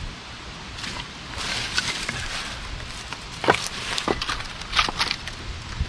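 Split firewood pieces knocking against each other as they are set on a stack: some scraping about a second and a half in, then a few sharp knocks, two of them close together near the end.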